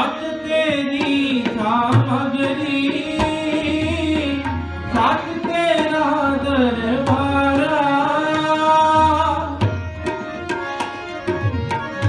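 Sikh kirtan: a singer sings a wavering melody of Gurbani over harmonium and tabla, with deep bass strokes and sharp treble strokes on the drums. The voice stops about ten seconds in, leaving the harmonium and tabla playing on.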